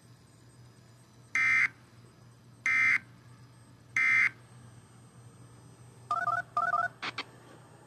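EAS end-of-message data signal: three short bursts of SAME digital tones, each about a third of a second long and a little over a second apart, marking the end of a tornado warning broadcast. About six seconds in come two quick bursts of stepped electronic beeps and a brief tone, over a faint steady hum.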